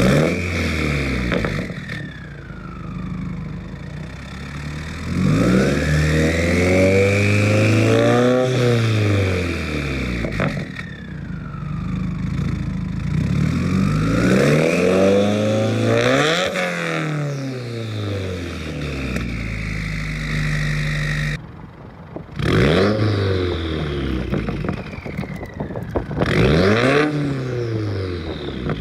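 Turbocharged FA20DIT flat-four of a Subaru WRX, fitted with Perrin headers, a Grimmspeed catted J-pipe and a Tomei titanium catback exhaust, revving up and back down several times: two slower climbs and falls, then two short sharp blips near the end.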